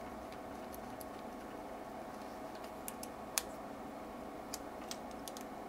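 Small clicks and taps of RF coaxial cable connectors being handled and fitted to an amplifier's input and output, with one sharper click a little past three seconds in, over a steady hum from the bench test equipment.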